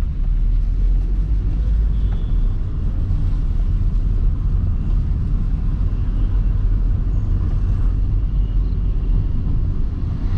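Honda City Type 2 VTEC heard from inside the cabin while driving downhill on a wet road: a steady low rumble of engine and tyre noise.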